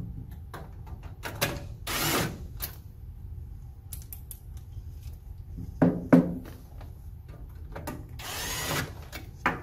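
Cordless drill/driver running in a few short bursts on the screws of the air handler's drain pan support bracket, the last burst spinning up with a rising whine. A couple of sharp knocks about six seconds in.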